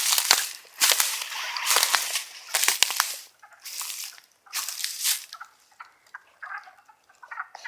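About six loud crunching rustles, roughly one a second, like steps through dry leaf litter, over the first five seconds. Under them is a wood frog chorus of duck-like clucking calls, which stands out alone near the end.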